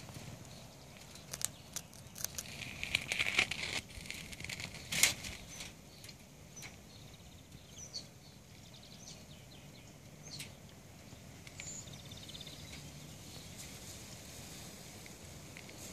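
Outdoor ambience: a burst of crackling and rustling a few seconds in, with a sharp click about five seconds in, then faint scattered bird chirps over a quiet steady background.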